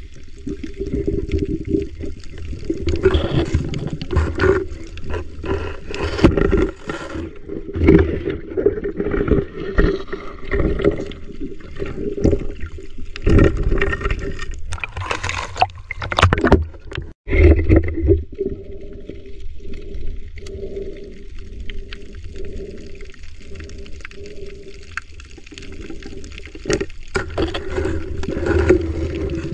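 Water moving around a camera held underwater: muffled churning and gurgling that swells and falls every second or two.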